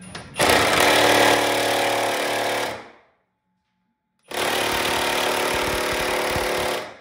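Milwaukee FUEL cordless impact wrench hammering on a torch-heated leaf-spring nut in two bursts of about two and a half seconds each, with a pause between. The nut is not breaking loose; more heat may be needed.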